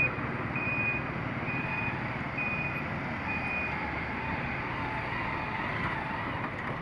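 Vehicle reversing alarm beeping at one pitch about once a second, fading after about four seconds, over steady street traffic noise.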